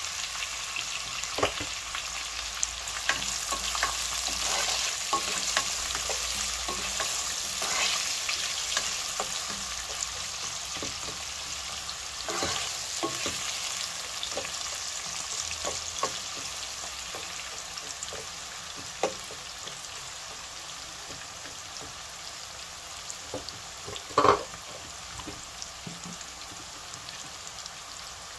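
Sliced onions frying in hot oil with cumin seeds in a saucepan: a steady sizzle that slowly quietens, with a wooden spoon stirring and scraping the pan in light clicks. A single sharp knock about 24 seconds in.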